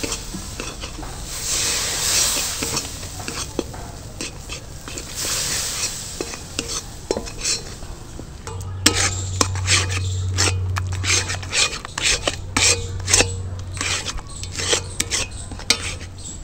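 A steel ladle stirring and scraping in a steel kadai as milk is added a little at a time to a sizzling butter-and-flour roux for white sauce. The sizzle fades after the first few seconds, and quick clicks and scrapes of metal on metal take over in the second half.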